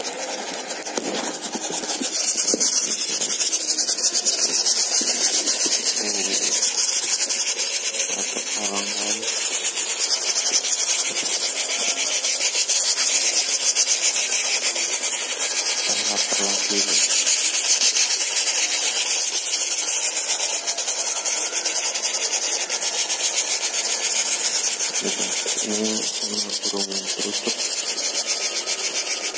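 Nestling birds in a cardboard box making a continuous, loud, raspy hissing chorus, with a few brief lower-pitched calls now and then.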